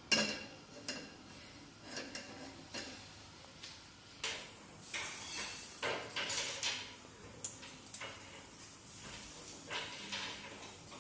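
Cookware clattering: a nonstick wok knocks onto a gas stove's metal grate just after the start, followed by irregular clinks and knocks of pans being handled over the stove.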